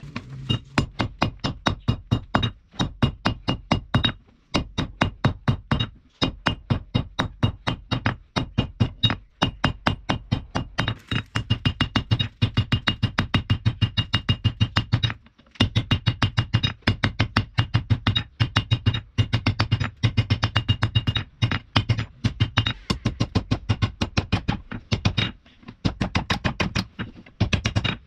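Rapid hammer blows forging spring steel on an anvil, about four or five ringing strikes a second, in long runs broken by a few short pauses. A low steady hum runs under the strikes.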